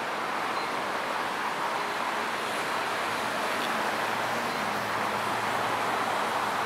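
Steady hum of city road traffic, cars passing on a wide multi-lane road, as a continuous even rush of noise.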